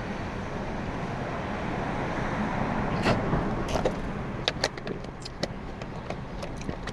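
Steady low rumble of vehicle road noise, with a run of sharp clicks and knocks from about three seconds in.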